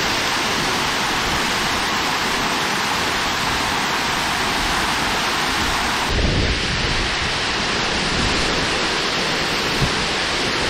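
Steady rushing noise of water at a dam, an even hiss with no rhythm, with a brief low thump about six seconds in.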